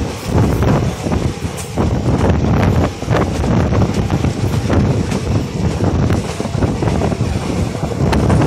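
Passenger train running along the track, heard from an open coach door: a continuous rumble with irregular clatters of the wheels on the rails, and wind across the microphone.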